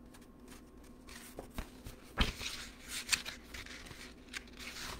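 Pages of a paperback picture book being handled and turned: paper rustling with light knocks, and one sharper knock about two seconds in.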